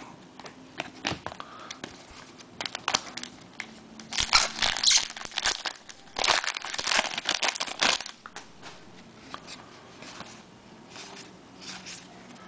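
A baseball card pack wrapper being torn open and crinkled, in two louder stretches of rustling about four and six seconds in, between light clicks of cards being handled.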